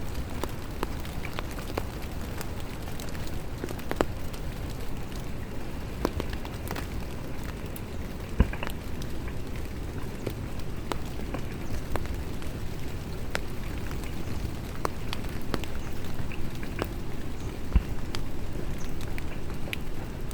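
Light rain falling, with scattered drops ticking sharply over a steady low rushing noise; two heavier drops knock louder, one about eight seconds in and one near the end.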